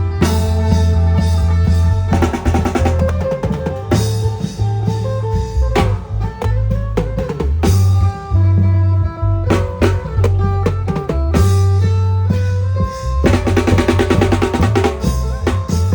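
Loud amplified klong yao band music: a heavy bass-drum beat and drum strokes under a held melody line.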